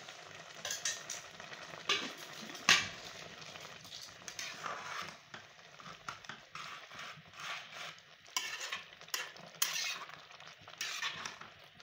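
Metal ladle stirring and scraping rice in a pot of simmering jaggery syrup, in irregular strokes over a faint sizzle, with a sharp clink against the pot about two and a half seconds in.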